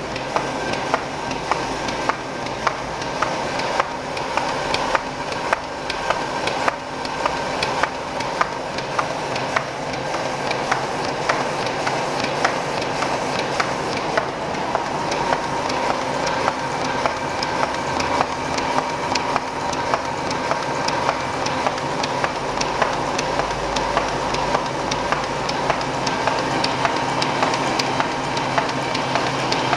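ZF490A paper pocket-envelope making machine with peel & seal unit running, a steady mechanical clatter with a regular series of sharp clicks from its cycling mechanism.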